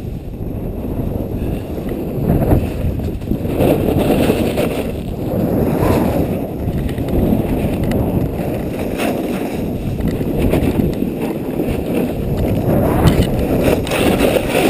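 Wind buffeting the action camera's microphone during a fast snowboard run, with the board's edge scraping and hissing over packed snow. The noise swells and eases every few seconds as the rider turns.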